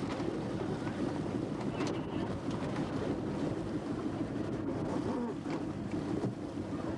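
A fishing boat under way: the engine runs steadily, mixed with water rushing past the hull and wind noise.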